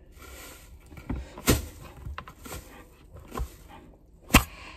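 A handful of short, sharp knocks and clicks from kitchen items being handled, the loudest near the end.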